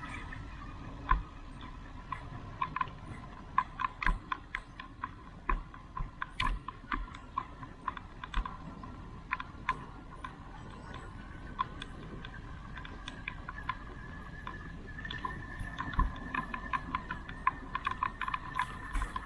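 Bicycle rattling over a rough road on a descent: irregular sharp clicks and knocks over a low rumble, with a thin steady whine joining for the last few seconds.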